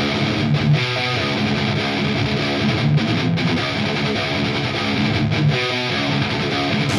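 Rock music: a guitar part, with no singing.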